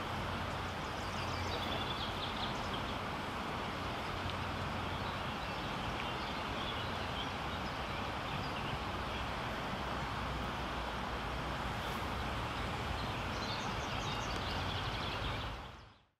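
Outdoor ambience: a steady background rush with birds chirping, most of the calls coming near the start and again near the end, fading out at the close.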